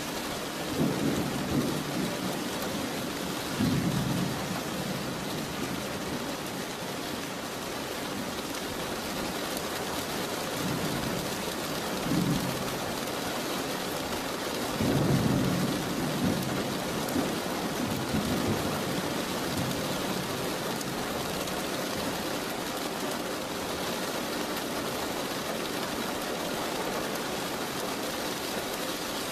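Steady heavy rain with thunder rumbling several times: about a second in, around four seconds, near twelve seconds, and longest around fifteen to sixteen seconds.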